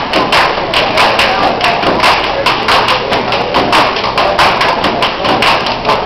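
A fast, uneven run of loud percussive thumps and taps, about five or six a second.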